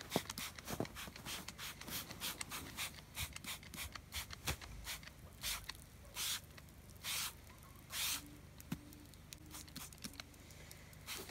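Hand spray bottle squirting Black Magic steel-blackening finish onto a steel plate in a quick run of short sprays, with a few longer hisses about two-thirds of the way in. The spraying stops shortly before the end.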